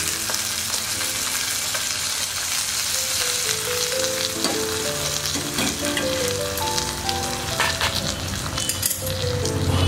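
Hot coconut-oil tempering of mustard seeds, dried red chillies and curry leaves sizzling in the buttermilk curry as it is stirred with a metal spoon. A simple background melody plays under it.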